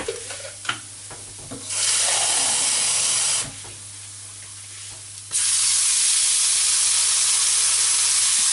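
Water poured into a hot frying pan of toasted rice, hissing and sizzling loudly: a burst about two seconds in, then again steadily from about five seconds in. The sizzle is the pan deglazing, lifting the browned flavour off the pan into the liquid.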